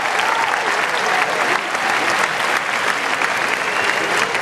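Tennis crowd applauding a point: dense, steady clapping from many spectators, with a few voices calling out over it.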